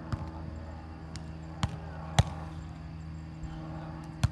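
A volleyball being struck by players' hands and forearms in a rally: four sharp hits, the loudest about two seconds in and near the end, over a steady low hum.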